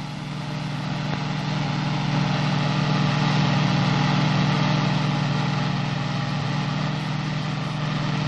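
A WWII jeep's engine running steadily as it tows a loaded trailer along a rough trail, growing louder over the first couple of seconds.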